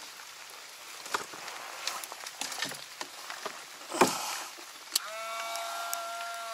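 Hands handling wires and clips at a boat battery, with scattered clicks and a sharp knock about four seconds in. About a second later a click is followed by a small 12-volt electric motor starting up and running with a steady whine.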